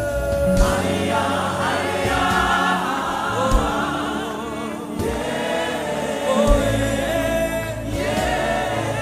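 Gospel worship music: a group of voices singing together in long, held, wavering notes over a steady low backing.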